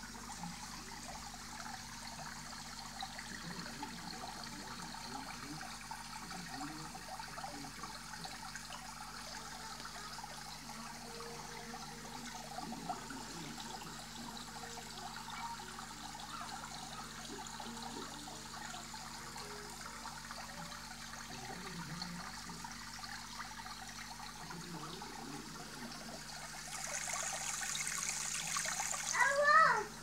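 Aquarium water bubbling and splashing from air-stone bubble streams and filter outflows agitating the surface, over a steady low hum of the pumps. Near the end the water noise grows louder, peaking in a brief loud rush.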